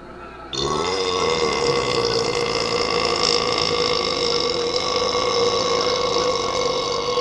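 A long, drawn-out belch that starts about half a second in and is held at a steady pitch for about seven seconds.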